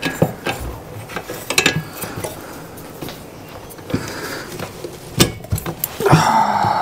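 Metal hand tools clinking and knocking as a spanner is found and put on the spark plug of a two-stroke trimmer, with a short grating sound lasting about a second near the end.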